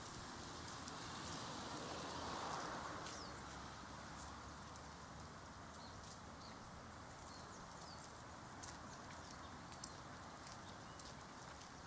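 Outdoor ambience on a walk: a steady background hiss that swells about two to three seconds in, with scattered light ticks and a few brief bird chirps.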